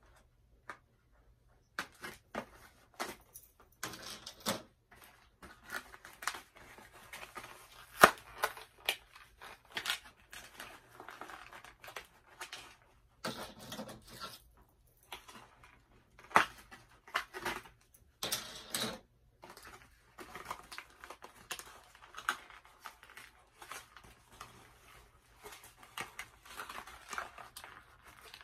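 Cardboard doll packaging being handled as the doll is taken out of its box: irregular rustling, scraping and sharp clicks and snaps, starting a couple of seconds in, the loudest snap about eight seconds in.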